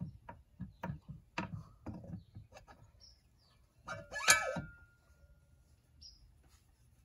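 Stainless steel propeller knocking and clicking against the outboard's propeller shaft as it is worked onto the splines, with one louder metallic clank about four seconds in that rings briefly. Faint bird chirps twice.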